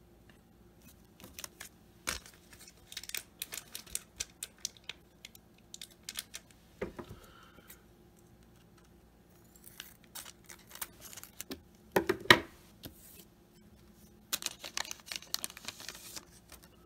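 Trading card pack being handled and torn open: scattered crinkles and small clicks of the wrapper and the cards, in bursts, the loudest about twelve seconds in.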